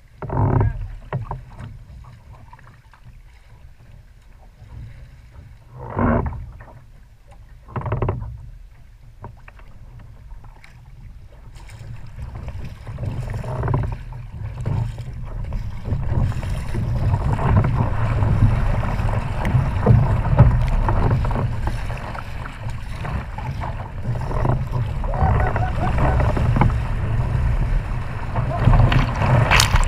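Wind-driven chop rushing and splashing against a surfski's hull as it runs downwind, under a low rumble of strong wind on the microphone. Two short splashes come about six and eight seconds in, then the rush of water grows steadily louder from about halfway as the boat rides the waves.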